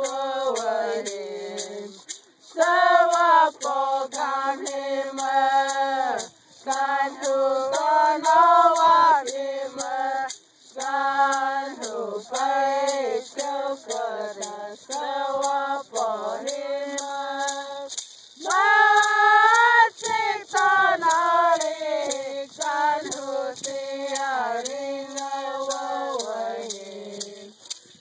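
Tohono O'odham traditional song, sung in a high voice as a run of phrases with short breaks between them.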